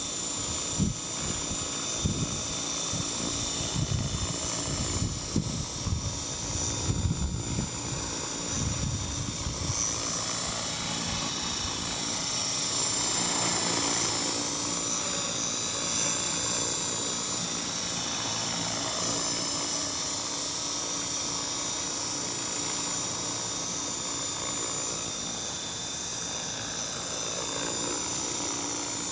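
TAYA Innovator radio-controlled helicopter flying, its motor and rotor making a steady high whine. Wind gusts buffet the microphone over the first third.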